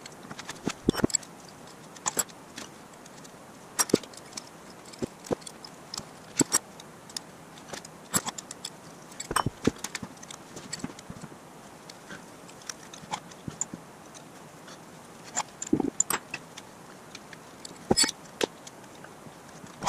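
Steel wrenches clinking and tapping against the head studs and cast-iron block of a Jaguar 2.4 L XK6 engine as the head studs are worked out: irregular sharp metallic clinks, a few every couple of seconds, with longer gaps between.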